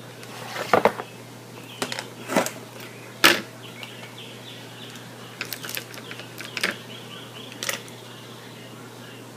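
Makeup compacts and a brush being handled: a scatter of sharp plastic clicks and taps, the loudest about three seconds in.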